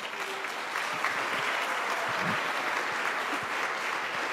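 Audience applauding: steady clapping from many people.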